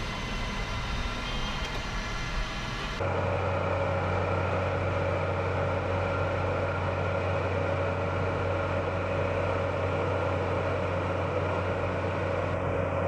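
Farm machinery running steadily with a heavy engine drone; about three seconds in the sound cuts to a different machine with a deeper, steadier hum.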